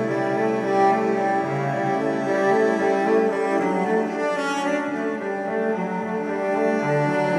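Background music: bowed strings playing slow sustained notes, led by cello and double bass.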